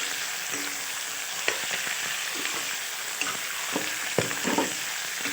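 Chicken pieces sizzling in hot oil with onions and whole spices just after going into the pan, stirred with a spatula that scrapes and knocks against the pan several times.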